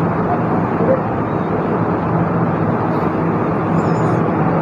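Electric fan running: a steady rushing noise with a faint low hum.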